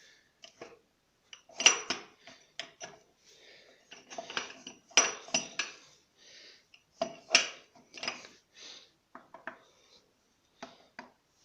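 Steel parts of a lathe's variator gearbox (gears, shafts, pulley cheeks) clinking and clattering as they are handled and set down: many sharp metallic knocks at uneven spacing, some ringing briefly.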